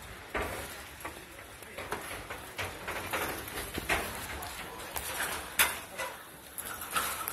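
Irregular footsteps and knocks, with one sharp knock a little after halfway.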